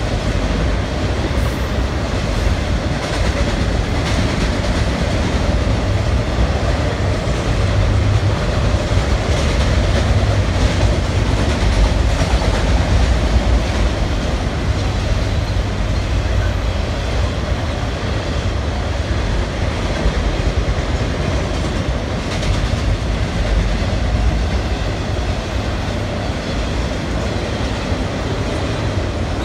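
Florida East Coast Railway intermodal freight cars rolling steadily across a steel girder bridge: a continuous deep rumble with wheel clatter.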